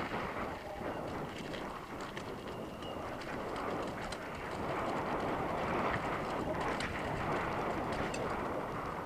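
Mountain bike rolling fast over dirt singletrack, with wind rushing over the helmet-mounted camera and scattered clicks and rattles from the bike over the bumps.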